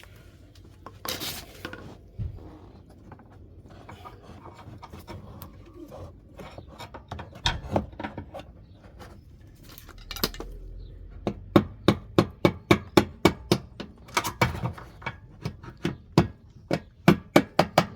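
Hand-tool work on a car's rear air suspension: scattered clicks and scraping, then from about halfway through a fast run of sharp taps, roughly two to three a second.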